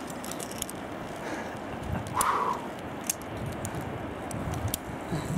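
Scattered light metal clicks and clinks of via ferrata lanyard carabiners handled against the steel safety cable, over a steady hiss.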